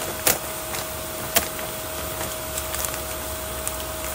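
Plastic bag of water-softener salt pellets being opened by hand: two sharp crackles, about a third of a second and a second and a half in, and a few lighter ticks, over a steady machine hum with a constant tone.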